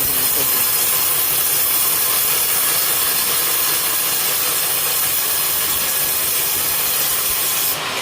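Sawmill blade cutting lengthwise through a coconut palm trunk, a steady loud hiss. The highest part of the sound cuts off near the end.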